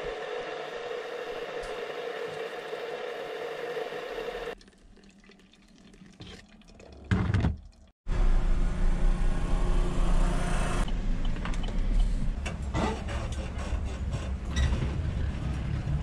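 Low road rumble of a pickup truck driving, heard from inside the cab. It starts abruptly about halfway through with scattered knocks, and is the loudest sound here. It is preceded by a steady hum, a quieter stretch and a brief loud burst.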